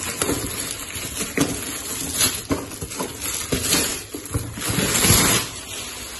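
Plastic parcel bag rustling and crinkling as it is pulled off a cardboard box, in irregular crackles, loudest about five seconds in.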